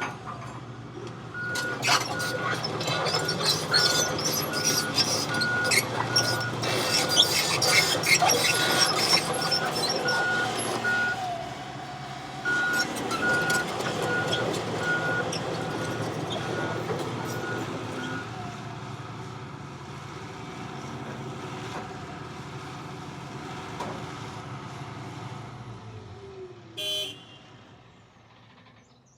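Hitachi ZX160LC-6N excavator's Isuzu diesel running, with metal clanks and knocks and a travel alarm beeping regularly through about the first eighteen seconds. The engine sound then fades and dies away near the end, after a brief sharp sound.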